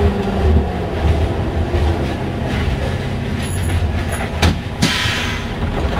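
Hamburg U-Bahn DT3-E train running alongside a station platform, heard from the driver's cab: a steady low rumble of wheels and running gear, with a faint high squeal and two sharp knocks near the end.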